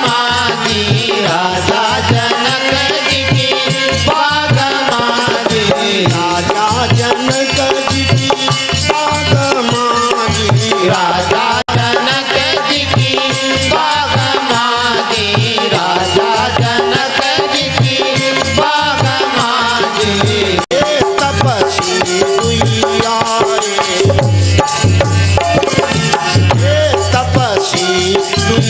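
Instrumental interlude of a Hindi devotional bhajan: fast hand-drum percussion keeps a steady beat under a wavering melody line, with no singing.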